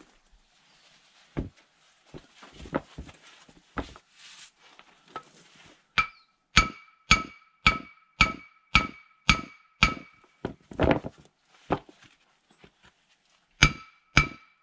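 Hammer striking the steel Stefa seal sleeve on a Nuffield tractor axle shaft, stretching the sleeve so it comes loose. After a few scattered knocks, steady ringing metallic blows start about six seconds in at about two a second, break off for a few seconds, and resume near the end.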